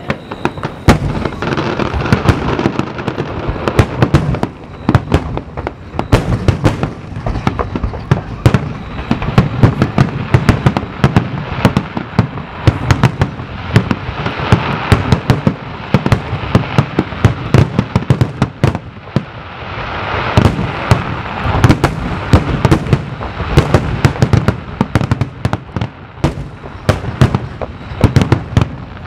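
Aerial fireworks shells bursting in a dense, continuous barrage, loud bangs coming many times a second and overlapping with crackling.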